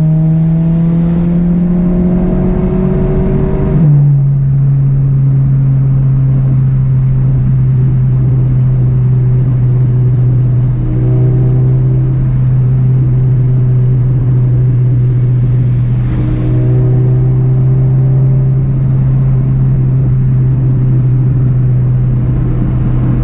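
Scion FR-S flat-four boxer engine through a catless, non-resonated straight-pipe exhaust, heard inside the cabin. The note rises under acceleration for about four seconds, drops suddenly as the car shifts up, then holds a steady low drone while cruising, with brief small changes in throttle.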